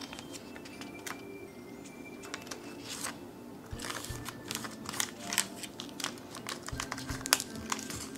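Plastic film crinkling and crackling as it is laid over a soft marshmallow layer in a glass container and pressed down with the fingertips. A few scattered crackles become a dense run of quick crackles after about three and a half seconds. Soft background music plays under it.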